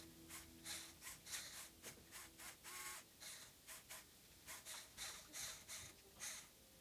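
Faint, sped-up whirring and clicking of a motorized Lego Technic forklift's small electric motors and plastic gears as it drives, coming in short irregular bursts about three a second, some of them squeaky. The audio is played at double speed.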